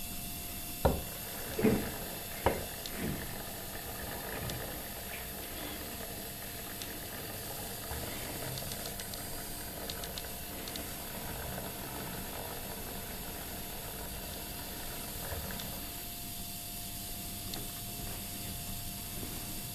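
Small motor of a rotating display turntable running with a steady hiss and a faint hum. Three sharp knocks in the first three seconds, with a few faint ticks later.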